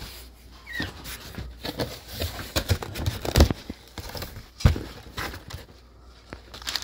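Cardboard box being opened and crumpled brown kraft packing paper being rustled and pushed aside by hand: irregular crinkling and crackling, with a couple of sharper knocks of cardboard about halfway through.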